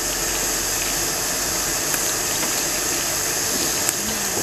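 Tap water running steadily onto hands and small Chinese onion bulbs being rinsed in a stainless steel bowl.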